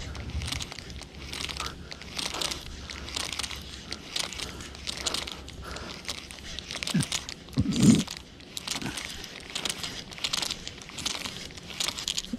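Spinning fishing reel being cranked to retrieve a lure, giving a fast, rhythmic scratchy clicking from the turning handle and gears. A short low hum is heard about eight seconds in.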